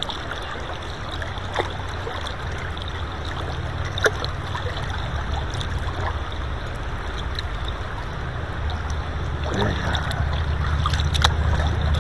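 River water rushing steadily around a wading angler's legs, close to the water, with a low rumble and a couple of small sharp clicks or splashes.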